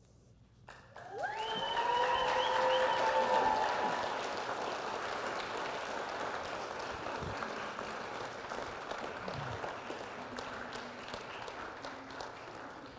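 Congregation applauding, with a few whooping cheers over the first few seconds. It starts about a second in, is loudest soon after, then slowly dies down.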